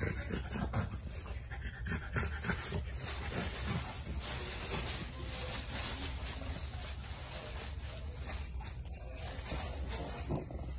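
A French bulldog sniffing and breathing hard as it roots with its nose in a plastic bag of tennis balls, the bag crinkling in short irregular bursts.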